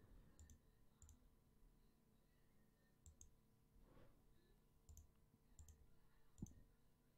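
Faint computer mouse clicks, scattered and some in quick pairs, over near silence.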